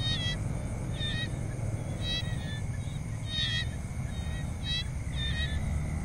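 Tropical jungle ambience: short animal calls repeating about once a second over a steady insect drone, with a low rumble underneath.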